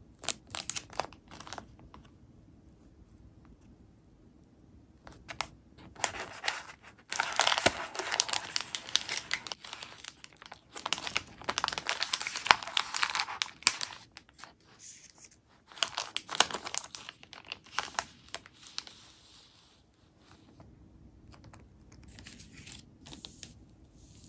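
Plastic candy-bag film crinkling and being torn open by hand, in irregular bursts, with the loudest and longest crackling in the middle, and lighter crinkles near the end.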